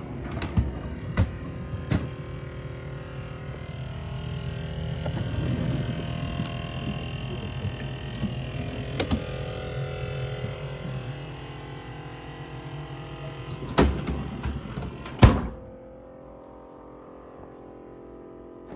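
KitchenAid refrigerator-freezer whirring steadily from the freezer compartment, the recurring noise that a repair did not cure. It swells a few seconds in. A few sharp knocks come through it, and after a loud thump near the end the whirring mostly dies away.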